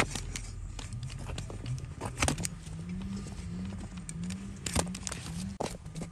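Broad flat hoof-trimming blade paring horn from a donkey's hoof on a wooden block: a run of sharp cutting cracks and scrapes, the loudest at the start, about two seconds in and about five seconds in. A low, wavering hum runs underneath.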